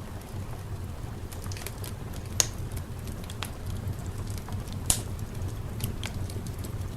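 Fireplace crackling, with sparse sharp pops (two louder ones about two and a half and five seconds in), over a steady low rumble.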